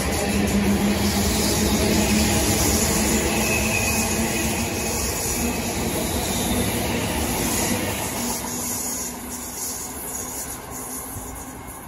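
London Northwestern Railway Class 350 electric multiple unit running past on the rails and moving away, a steady motor hum over wheel-on-rail noise, fading over the last few seconds.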